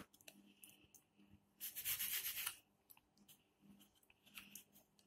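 A baking tray lined with greaseproof paper being handled: one rubbing, scraping noise lasting about a second, about two seconds in, with a few faint handling ticks around it.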